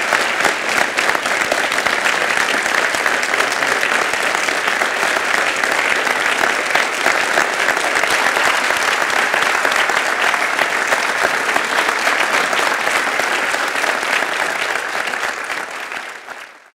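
A large audience applauding steadily, many hands clapping at once, fading out near the end.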